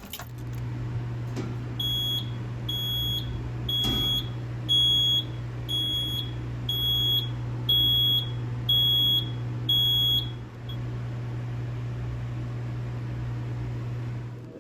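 Fire alarm sounding in a test: about nine evenly spaced high-pitched beeps, roughly one a second, stopping about ten seconds in, over a steady low hum.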